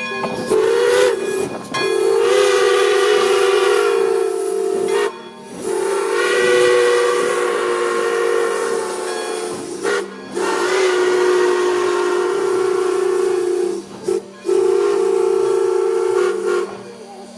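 A steam locomotive's chime whistle blowing a series of blasts, sounding a two-note chord. A shorter blast comes first, then several long ones a few seconds each, with a brief toot near the end.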